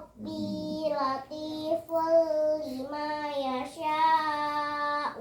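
A child's voice chanting Qur'anic recitation in a melodic, sung style, holding long, steady notes over about five drawn-out phrases with short breaths between them.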